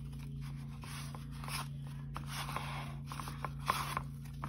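Fingers rubbing and pressing raw oysters through dry seasoned breading mix in a pan: a run of soft gritty scrapes, with a few sharper ticks in the last second or so.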